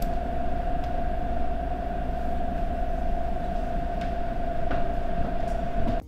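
Steady low rumbling drone with a single held tone above it, cutting off suddenly near the end.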